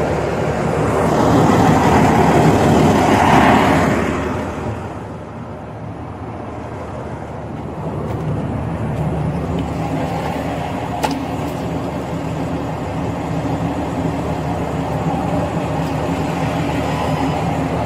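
A motor vehicle's engine running steadily close by, with a louder swell of vehicle noise for a few seconds near the start. There is one sharp click about eleven seconds in.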